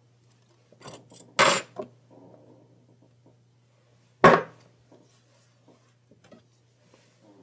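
Kitchen utensils handled on a wooden cutting board and countertop: a short scrape about a second and a half in, then a sharp knock as a utensil is set down about four seconds in, with faint small clicks and rubs between.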